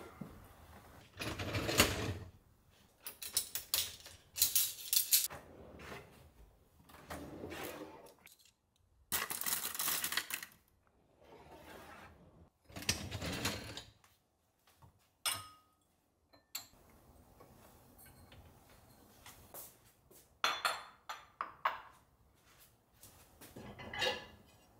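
Kitchen work sounds: dishes and utensils being handled, clinking and scraping in a series of separate bursts about a second long, with short pauses between.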